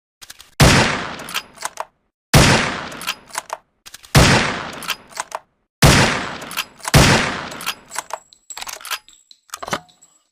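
SRP rifle sound effect: five loud rifle shots, each with a long fading echo, spaced roughly one to two seconds apart, with short metallic clicks of the action between shots. A run of lighter clicks follows near the end.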